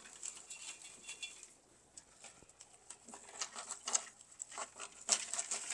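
Dried bittersweet garland rustling and crackling as it is handled and worked into another garland, with scattered small crackles that grow busier in the second half.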